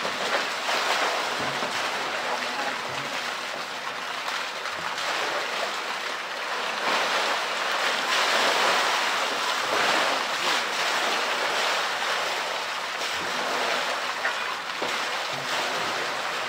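Polar bear splashing and churning the water of a pool as it wrestles a floating blue plastic ball: continuous splashing, heaviest about halfway through.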